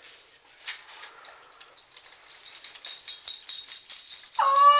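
Light clicks and rustles, then rapid metallic jingling from about halfway in that grows louder. Near the end a high, steady pitched tone starts abruptly over the jingling.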